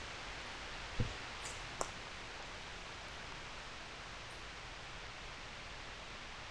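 Quiet woodland ambience: a steady soft hiss of background noise, with two faint short ticks about one and two seconds in.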